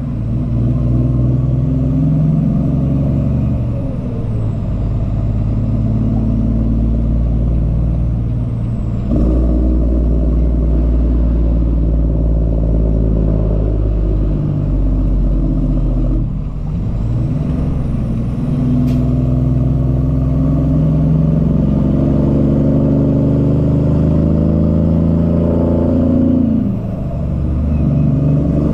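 Cummins ISX diesel in a Peterbilt 379 semi truck pulling a loaded trailer away and working up through the gears, the engine note climbing and then dropping at each of several upshifts.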